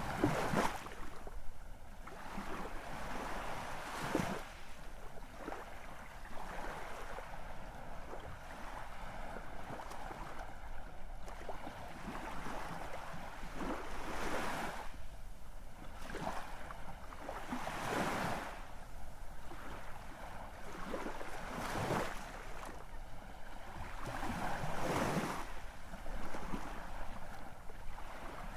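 Sea waves breaking and washing in, a steady rush of surf that swells into a louder crash every few seconds.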